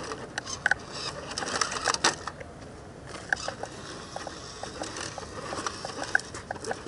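WPL 1:12 military 4x4 RC truck's small electric motor and gear drivetrain running in uneven spurts as it crawls over rock, with many irregular clicks and ticks.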